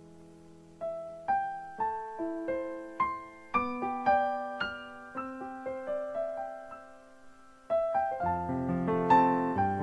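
Background piano music: single notes played slowly, each ringing out and fading, with fuller chords joining about eight seconds in.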